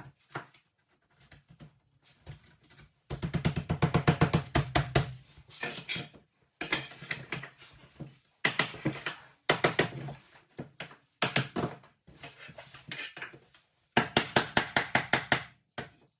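Laminate flooring planks being knocked into place, rapid sharp taps in quick runs of a second or so with short pauses between, the densest run about three seconds in.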